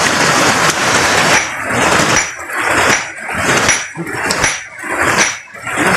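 A hammer striking a stone boulder over and over, a sharp clink with a brief high ring about three times every two seconds, starting a second and a half in. Rushing stream water runs underneath.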